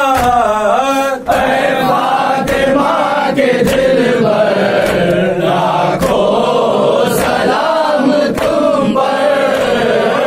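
Shia mourners reciting a nauha: a lead reciter's sung line gives way about a second in to a crowd of men chanting the refrain together. Steady thuds of matam, hands striking chests, fall roughly once a second.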